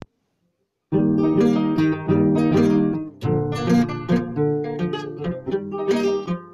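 Acoustic guitar coming in about a second in with rhythmic strummed chords, then changing about three seconds in to picked single notes and bass runs.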